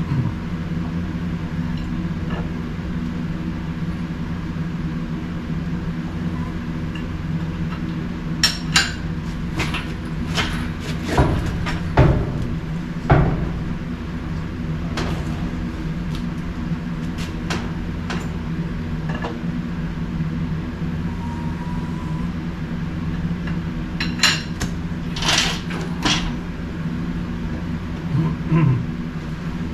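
Steady low hum with scattered knocks and clanks of tools and parts being handled, in two clusters, one near the middle and one near the end.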